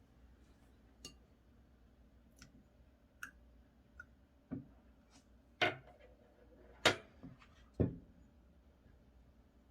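Slime being handled and mixed by hand, giving about ten scattered sharp clicks and pops. The three loudest come in the second half, and the sound dies down after about eight seconds.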